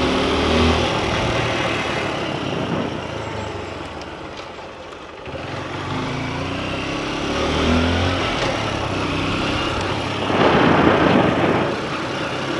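Small motorcycle engine running as the bike rides along a paved street, easing off about four seconds in and picking up again. A louder rush of noise comes near the end.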